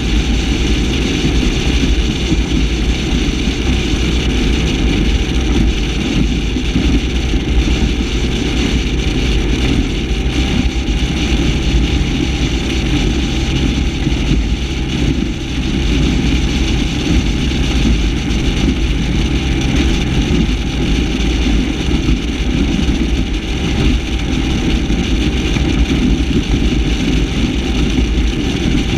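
Mercruiser 496 HO big-block V8 of a Warlock 25 SXT catamaran running steadily at speed.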